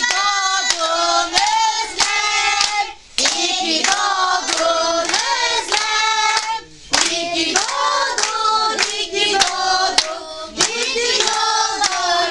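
A group of adults and children singing a birthday song together and clapping along in time, about two claps a second, with short breaks between lines.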